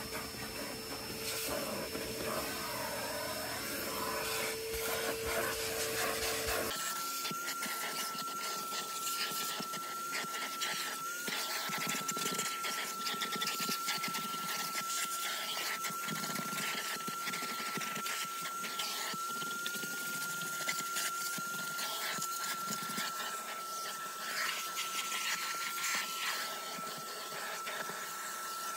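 Vacuum cleaner running steadily, its hose sucking over car floor carpet, with a steady whine from the motor. About seven seconds in, the sound changes abruptly to a higher-pitched whine.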